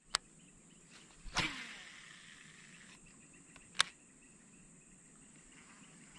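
Insects chirring steadily, with a high thin drone over a quiet outdoor background. A sharp click comes right at the start, a louder swish about a second and a half in fades away over the next second and a half, and another sharp click comes near four seconds.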